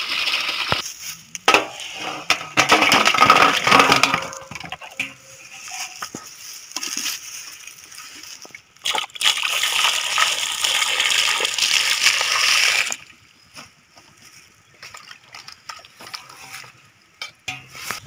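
Water pouring in a stream into an aluminium pot, then a stretch of irregular splashing and knocks. Next comes a second steady pour of water over green mangoes in the metal pot, stopping abruptly about 13 seconds in. After that, quieter sloshing and rubbing as hands wash the mangoes in the water.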